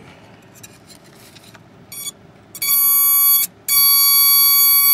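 Bare piezoelectric buzzer disc driven by a function generator: a few scratchy contacts as the probe lead is touched to its surface, then a loud, steady, high buzzy tone that sounds about two and a half seconds in, drops out briefly and comes straight back as the contact is made and broken.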